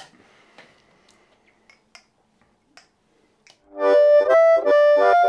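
A few faint clicks, then about four seconds in a Marine Band harmonica in C, played cupped into a Blowsmeaway Ultimate 545 bullet microphone, starts a loud, rhythmic blues phrase of chords. The Lone Wolf Harp Attack valve preamp is switched off, so the harp is heard without its amp tone.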